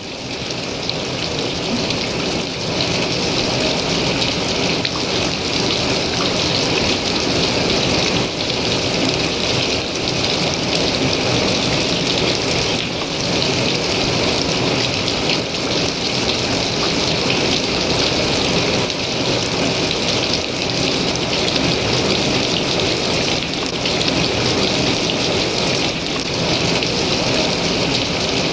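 Hailstones falling and striking surfaces: a dense, steady patter of countless small hits that fades in at the start and then holds even.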